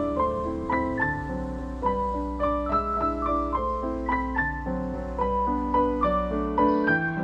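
Background piano music: a melody of separate struck notes over lower chords, with a low steady rumble and hiss beneath it that stops near the end.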